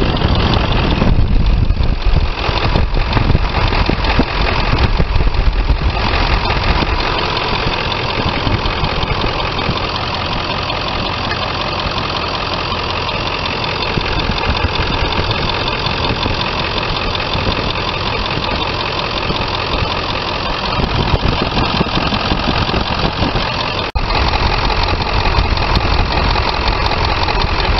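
Ford 7.3 L Powerstroke turbo diesel idling steadily, heard up close at the A/C compressor and its belt drive.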